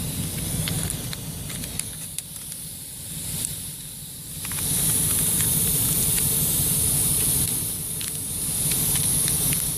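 Air hissing out of a punctured car tire around the rasp tool left in the drilled hole. It swells louder about halfway through and again near the end, over a low rumble.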